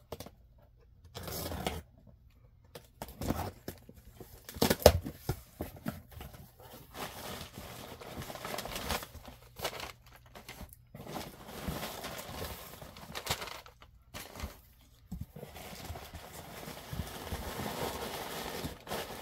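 Cardboard shipping box being torn open and its contents handled: ripping and rustling, plastic packaging crinkling, and scattered knocks, the loudest a sharp knock about five seconds in.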